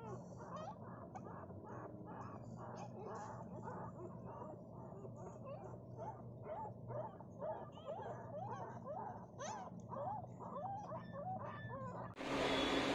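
Newborn puppies squeaking and whimpering, a steady run of short rising-and-falling high cries, a couple or more each second. Near the end it cuts suddenly to a louder steady hum.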